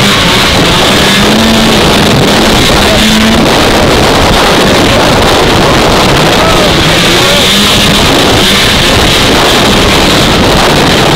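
Vintage two-stroke snowmobile running under way, its engine note wavering slightly up and down, with heavy wind noise on the microphone.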